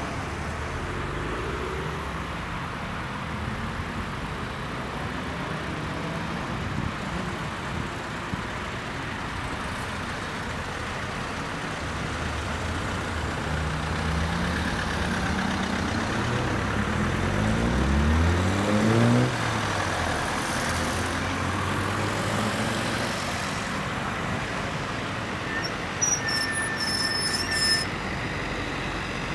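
Alfa Romeo cars driving by at low speed, with one engine revving up and pulling away, its pitch rising to the loudest moment a little past halfway. A short high-pitched tone sounds near the end.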